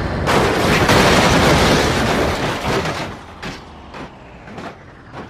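Plastic toy vehicles clattering into a container: a dense rattle for about three seconds, then a few separate clicks and knocks as they settle.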